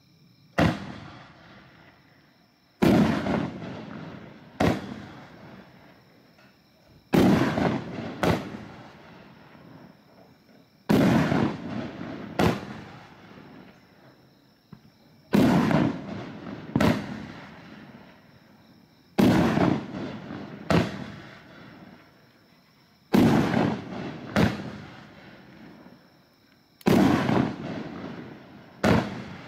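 A 9-shot consumer fireworks cake (Ghost Dragon) firing its shots one after another, about every four seconds. Each shot is a loud bang followed a second or two later by a smaller second bang, each with an echoing tail.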